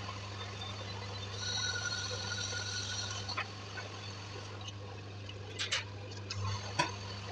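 Metal lathe running with a steady low hum; a thin whine rises over it for about two seconds, and a few light metal knocks come near the end.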